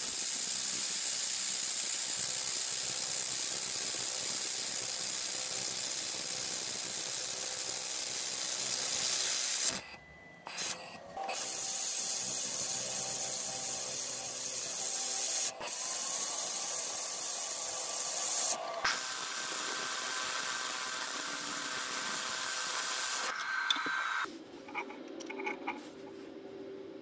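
XPhotonics X1 Pro 700 W fiber laser welder, wire-fed with nitrogen gas, welding 6 mm mild steel plate: a loud steady hiss in four runs of a few seconds each, broken by short pauses. It stops about a second before three-quarters of the way through, leaving a quieter steady background.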